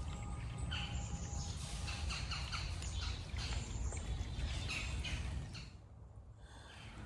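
Several birds chirping and calling over a steady low rumble; everything drops away briefly about six seconds in.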